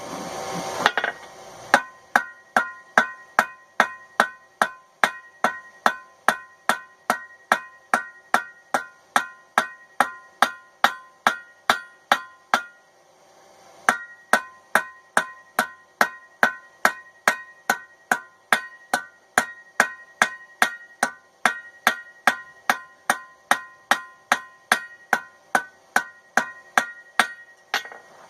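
Hand hammer striking a hot railroad spike on an anvil, drawing out and widening the knife blade. Steady blows come about two a second, each with a ringing anvil tone, with a pause of about a second midway.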